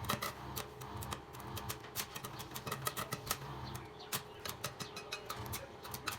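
Irregular run of sharp clicks and taps, several a second, over a low steady hum.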